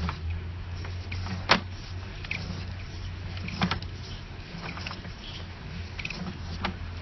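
Sewer inspection camera rig being pushed down the line: a steady low mechanical hum with a few sharp clicks and knocks, the loudest about a second and a half in.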